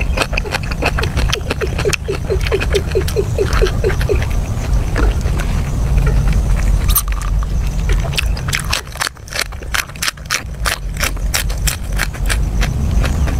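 Close-miked eating: crunching and chewing of grilled meat and raw vegetables, with many crisp mouth clicks and smacks, densest in the second half. A quick run of even ticks comes in the first few seconds, and a steady low rumble runs underneath.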